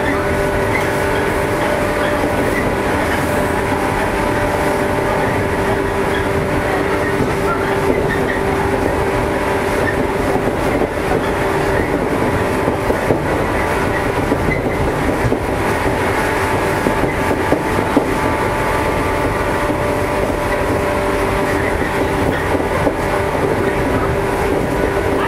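JR East 115 series electric train running at a steady speed, heard from on board: an even motor and gear whine over the rumble of the wheels on the rails, with a few sharp clacks from the track.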